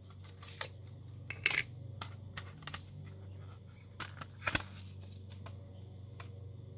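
Plastic CD jewel case being handled and opened: a scatter of short clicks and taps, sharpest about a second and a half in and again near the middle, over a low steady hum.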